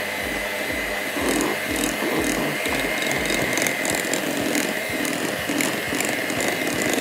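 Electric hand mixer running steadily at a constant high whine, its beaters churning butter, cream cheese and icing sugar into cream cheese frosting in a glass bowl.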